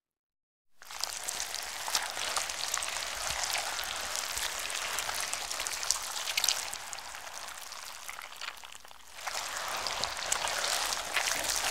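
A wet, squishy material being squeezed and worked: a dense crackle of tiny wet pops and clicks. It starts about a second in, eases off briefly near three quarters of the way through, then picks up again.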